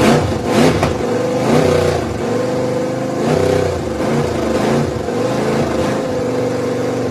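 Ford 351 Windsor (5.8 L) V8 running in a 1995 truck, engine speed rising and falling unevenly. The truck has a large vacuum leak.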